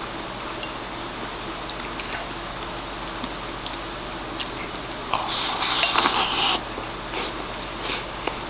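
Chopsticks clicking lightly against a ceramic rice bowl while eating, then a louder stretch of about a second and a half a little past halfway as rice is shoveled from the bowl into the mouth with chopsticks, followed by two short scrapes.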